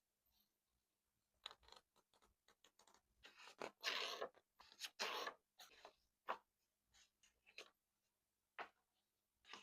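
Paper and craft materials being handled while a scrapbook page is assembled: scattered light taps and clicks, with a few short rustling swishes of paper a few seconds in.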